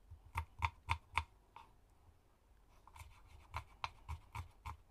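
Kitchen knife slicing a shallot on a wooden cutting board: sharp taps of the blade on the board, about three a second, with a pause of about a second and a half in the middle.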